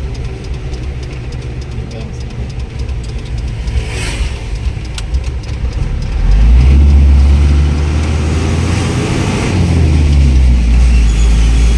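Car engine and road noise while driving, growing louder and heavier about six seconds in as the vehicle speeds up.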